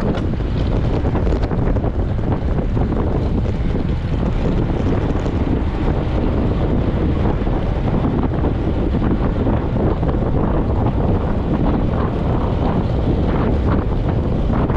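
Wind buffeting the microphone of a handlebar-mounted camera on a road bike moving at about 35 km/h: a steady, loud rumble.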